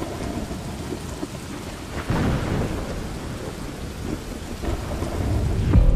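Thunderstorm: steady rain with a sharp clap of thunder about two seconds in, then a low thunder rumble swelling near the end.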